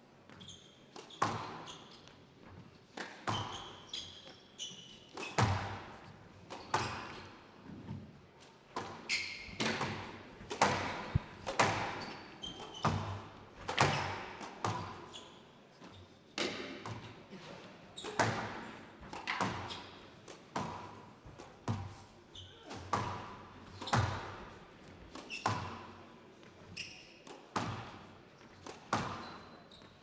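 A squash rally: the hard rubber ball cracking off rackets and walls about once or twice a second, each hit echoing in the hall, with brief high squeaks between the shots.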